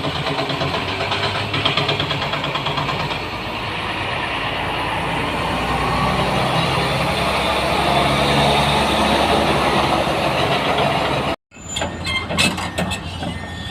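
Excavator's diesel engine running steadily, swelling a little in the middle, while digging rock. After an abrupt cut near the end, the engine is lower, with sharp clinks and knocks.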